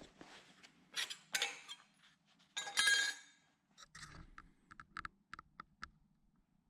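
Welded scrap steel pieces being handled: a couple of knocks, then a clinking clatter with a metallic ring, followed by a run of short light clicks.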